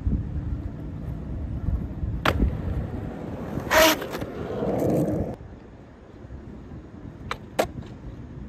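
Skateboard wheels rolling on rough asphalt with a low rumble that stops about five seconds in. There is a sharp clack about two seconds in and a louder crack of the board near the four-second mark, then two quick clicks from the board near the end.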